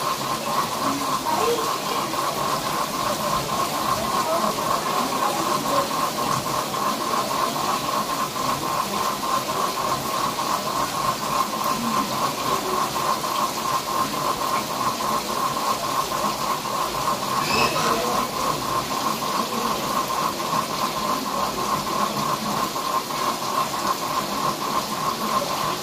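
Frogs (kodok ngorek) calling in a chorus: a continuous, rapidly pulsing trill held at one pitch, over a steady hiss.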